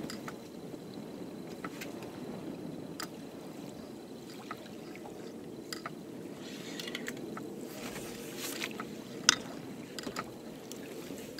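Small waves lapping against a boat's hull on choppy lake water, a steady wash with scattered light clicks and one sharper knock about nine seconds in.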